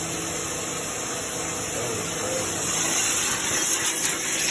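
Pressure washer wand spraying a steady, hissing high-pressure jet of water into a car's engine bay, with a faint steady hum beneath it. It gets a little louder near the end.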